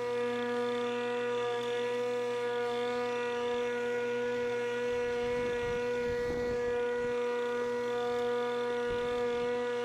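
Pellenc Rasion 2 Easy battery lawnmower running with a steady electric whine from its motor and spinning blade, one held pitch with overtones, and some low rumbling about halfway through.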